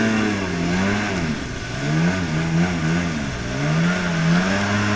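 Sea-Doo jet ski's two-stroke engine running under way. Its pitch dips about a second in, then falls and rises several times in quick succession as the throttle is worked, before holding steady again near the end.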